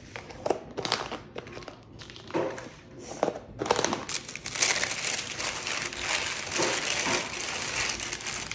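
Plastic lids snapped and pressed onto plastic meal-prep containers, a few separate sharp clicks. Then used parchment paper is crumpled up off a metal sheet pan, a continuous crinkling through the second half that is the loudest part.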